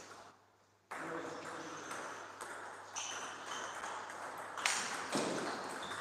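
Table tennis ball being struck by rackets and bouncing on the table in a rally, with short sharp pings and clicks, against the general noise of a playing hall. It follows a moment of near silence at the very start.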